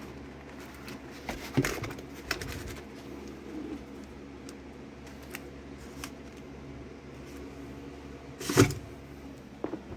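Tool boxes and packaging being handled during unpacking: a few sharp knocks and clatters, the loudest one about eight and a half seconds in, over a steady low hum.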